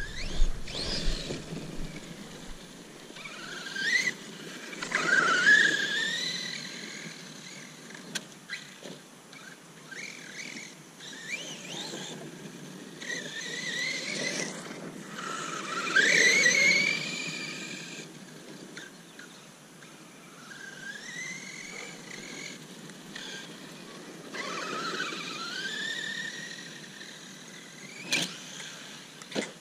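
Redcat Landslide electric RC monster truck driven hard on a lawn, its motor whining up in pitch with each burst of throttle, about half a dozen times. A sharp knock comes near the end.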